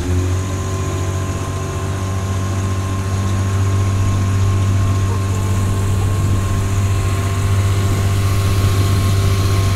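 Speedboat's outboard motor running at a steady speed, a constant drone that does not change in pitch, with a rush of water and wind beneath it.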